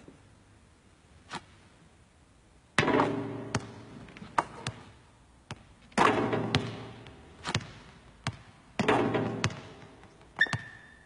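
Three loud knocks about three seconds apart, each ringing on as it dies away, among lighter clicks and taps. A brief high tone sounds near the end.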